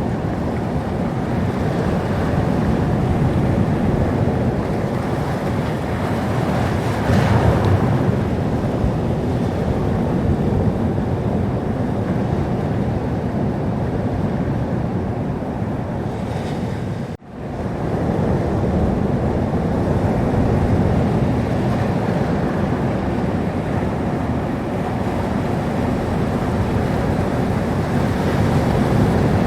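Sea surf washing steadily onto the shore, with one louder wave about seven seconds in. About seventeen seconds in the sound cuts out for a moment and fades back in, like a loop join in the recording.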